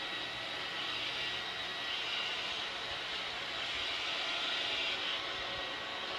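Steady mechanical drone with a hiss, unchanging throughout.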